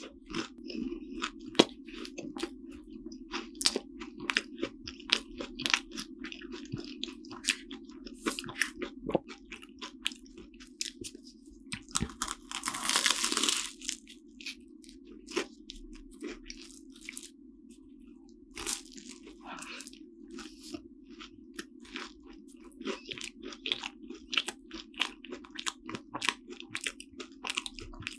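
A person eating a flaky cream-filled croissant: crisp pastry crackles and chewing throughout, with one loud crunching bite about halfway through.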